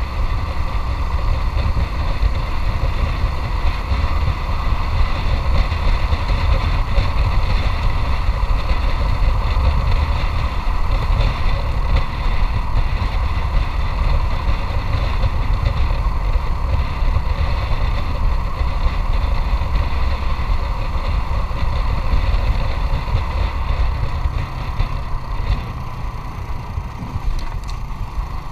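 Motorcycle engine running steadily while being ridden, with a continuous low rumble of wind and road noise on the camera's microphone.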